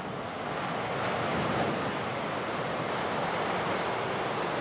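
Steady rushing roar of a landslide: earth and water pouring down the collapsing wall of an open-pit tin mine, heard through a camcorder microphone. It grows a little louder about a second in.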